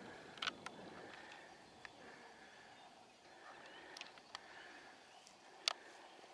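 Quiet hillside ambience with faint distant birds, broken by a handful of short sharp clicks, the loudest near the end.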